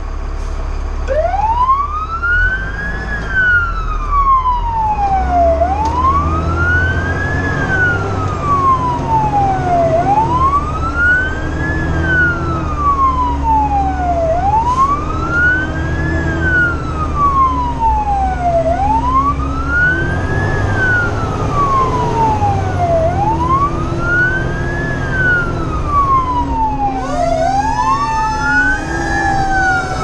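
Fire truck siren on a wail, rising and falling about every four seconds, heard from inside the cab over the truck's engine rumble. Near the end a second rising and falling siren tone overlaps it.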